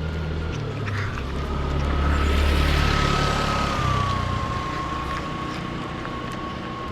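A motor vehicle passing on the road: its engine hum shifts in pitch, and its noise swells to a peak about halfway through, then fades.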